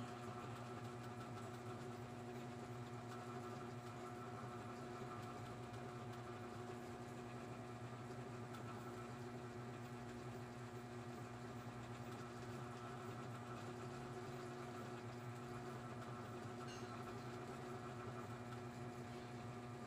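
A steady machine hum with several fixed low tones under a faint hiss, unchanging throughout.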